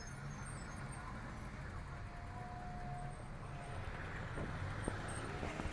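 Steady city street noise, a low rumble of traffic, with a faint held tone about two seconds in and a few small knocks near the end.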